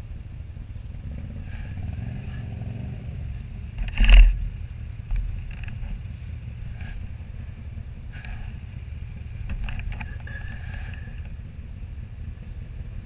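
Can-Am Commander side-by-side's V-twin engine running steadily on the move, with the rattle and clatter of loose tools in the rear storage, and one loud knock about four seconds in as the machine jolts.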